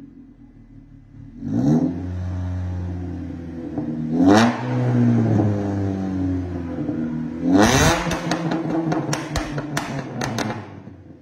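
Seat Ibiza FR's turbocharged engine through an aftermarket valvetronic muffler and downpipe: idling, then revved three times, held at raised revs between the blips. After the third blip comes a fast run of sharp exhaust crackles as the revs fall back to idle near the end.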